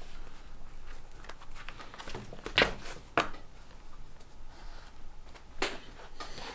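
Leather being hand-stitched: thread drawn through punched holes in the leather, with a few short sharp rasping pulls among soft rustling of the leather under the hands.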